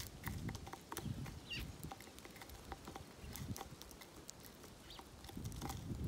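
Sparrows pecking seed from a feeder tray: many quick, irregular ticks and taps of beaks on seed and tray, with a couple of brief faint chirps. A low rumble comes at the start and again near the end.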